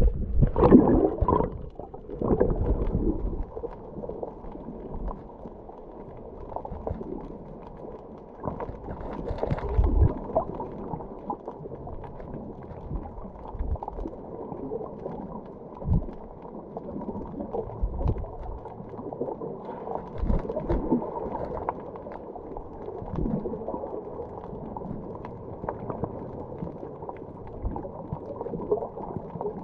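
Muffled water noise picked up by a camera underwater: louder sloshing and splashing in the first couple of seconds as the lens washes through the surface, then an even, dull wash with scattered low thumps.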